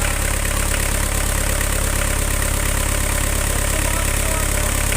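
Diesel engine running steadily at about 1,490 rpm during a fuel-consumption test.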